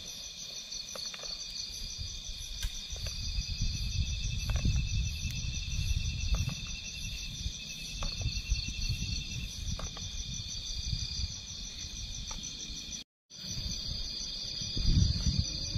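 Night chorus of crickets and other insects: several steady high trills, some of them pulsing, over a low rumble, with a few faint clicks. The sound drops out for a moment near the end.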